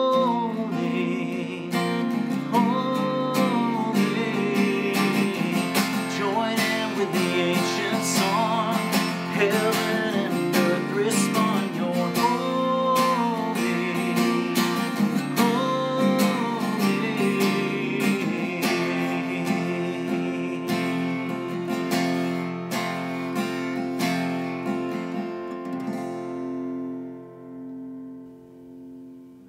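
A man singing a worship song while strumming an acoustic guitar. About three seconds before the end the singing and strumming stop and the last chord rings out and fades.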